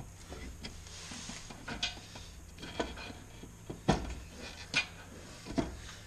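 Scattered light clicks and knocks of small metal parts being handled: a metal mounting bracket being held up and shifted against a car's front sheet metal. The loudest knock comes about four seconds in.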